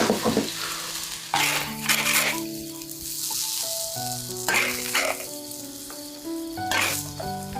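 Food sizzling as it fries in a pan, with a few louder surges of sizzle, over background music of held notes.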